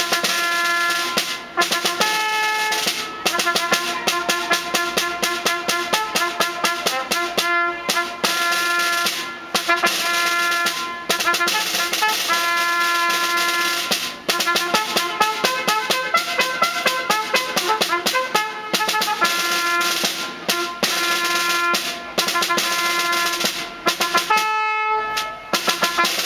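Several trumpets playing a ceremonial tune in held notes over a snare drum's steady strokes and rolls.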